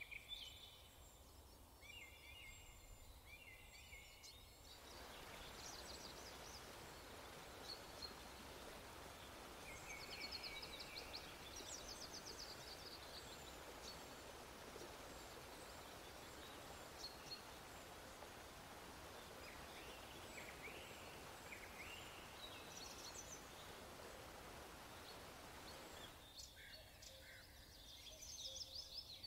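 Faint bird chirps and short trills over a steady hiss; the hiss grows louder about five seconds in and drops back near the end.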